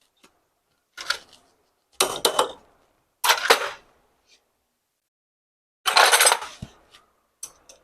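Metal tools and parts clinking and clattering on a workbench, in five short bursts with quiet between.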